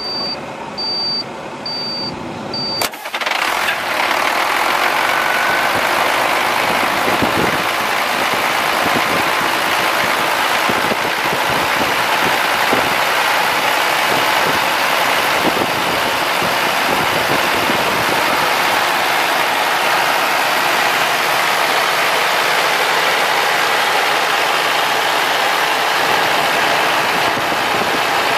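International DT466 inline-six diesel in a heavy truck starting up. A high beep repeats for about the first three seconds, the engine catches just under three seconds in, and it then runs at a steady idle.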